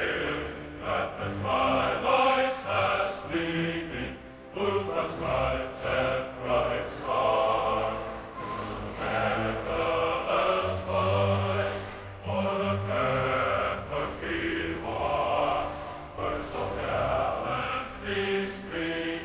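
A choir singing a slow national anthem with long held notes.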